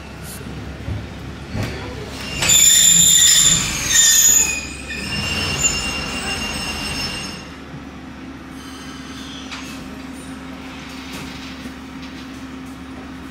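Randen (Keifuku Electric Railroad) tram's wheels squealing as it brakes to a stop at the end of the line. A loud, high-pitched squeal starts about two and a half seconds in and eases to a softer squeal. After about seven and a half seconds only a steady low hum remains.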